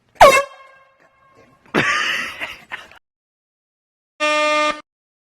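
A loud, sudden yelp that drops sharply in pitch and trails off. It is followed by a rough, noisy shriek. Near the end comes a short, steady blast from a hand-held air horn, about half a second long, starting and stopping abruptly.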